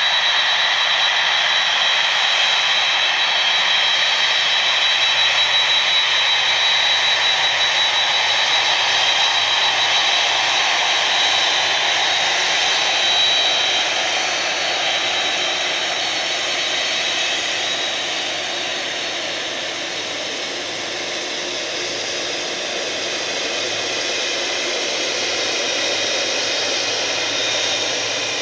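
Boeing 747-400 freighter's GE CF6 turbofan engines running at taxi power: an ear-piercing, hard metallic whine with steady high tones over a broad jet rush. It eases slightly in the middle and builds again towards the end.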